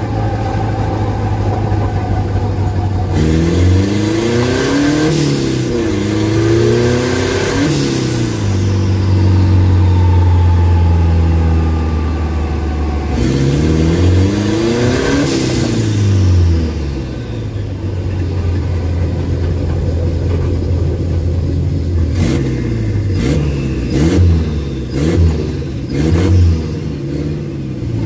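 Turbocharged Chevrolet Chevette four-cylinder engine heard from inside the cabin, accelerating hard twice, the revs climbing and dropping back at each gear change, with steady cruising in between. Near the end comes a run of short throttle blips, each with a sharp burst of noise.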